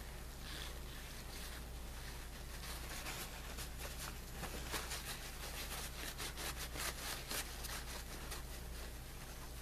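Paper towel rustling and crinkling faintly as it is rubbed over a metal bezel pendant and crumpled in the hands, with crackles bunched in the middle. A steady low hum runs underneath.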